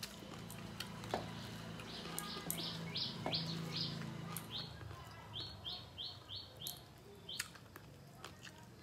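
A small bird chirping in two runs of short, repeated high notes, about three to four a second, over scattered soft clicks of fingers working food on metal plates.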